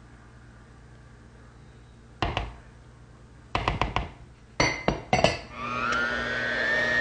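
Metal beaters clinking sharply a few times as they are fitted to an electric hand mixer and knocked against the bowl. About five and a half seconds in, the hand mixer starts beating the cream cheese mixture, a steady whine whose pitch wavers up and down.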